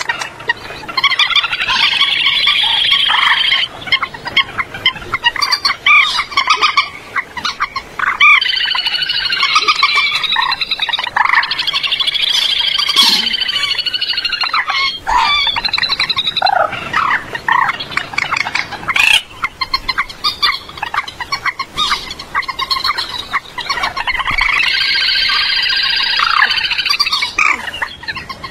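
Common moorhen calling: bouts of rapid, harsh chattering notes lasting a few seconds each, with scattered single calls between. It is a clean recording of the 'chích ré' call, used as a lure for bird netting.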